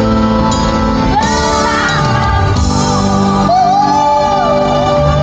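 Music with a singer's voice, the notes held and sliding up and down over a steady accompaniment.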